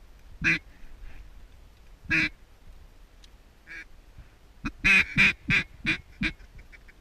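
Mallard-style quacks blown on a duck call: one loud quack, another about two seconds later, then a quick descending run of about five quacks that get quieter toward the end.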